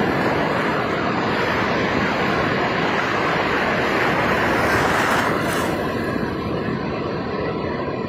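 Sea surf washing in over shallow water at the shoreline: a steady rush of breaking, foaming waves that eases a little about five seconds in.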